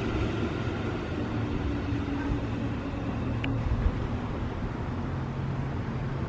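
Steady low rumble of road vehicle engines at a level crossing, just after a train has passed. The train's sound fades out in the first second or so, and there is one brief faint click about three and a half seconds in.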